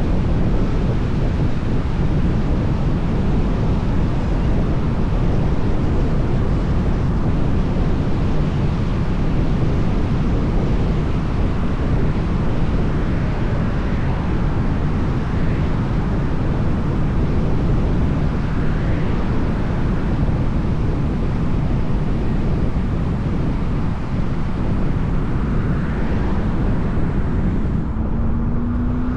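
Strong wind buffeting the microphone, a steady low rumble, with faint vehicles passing now and then. Near the end a vehicle engine tone comes in.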